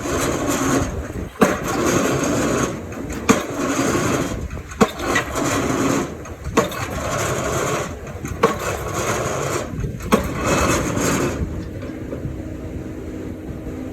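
Excavator working on pile work: engine running under load with a sharp knock about every two seconds, then a steadier engine hum for the last few seconds.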